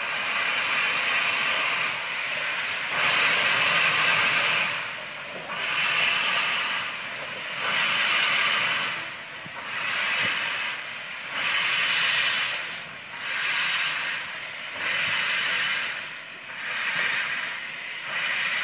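Steam locomotive moving slowly, steam hissing in even bursts about every two seconds from around its cylinders, coming a little faster near the end.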